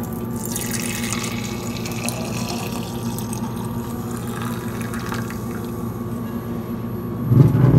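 Whey poured in a thin stream from a steel pot into a glass mason jar, a splashing trickle running for several seconds over a steady low hum. A loud low thud near the end.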